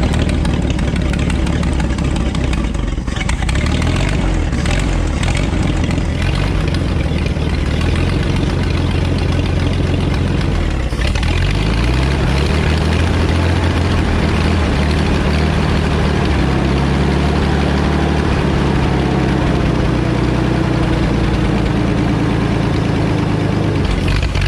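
Power Horse 4WD farm tractor's engine running steadily near idle, its speed dipping briefly about eleven seconds in before settling again.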